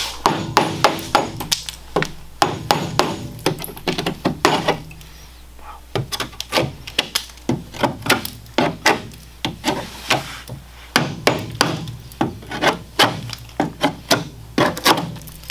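Hand scraper chipping and scraping body filler and old coating off the car's sheet metal in quick, irregular strokes, several a second, with short pauses.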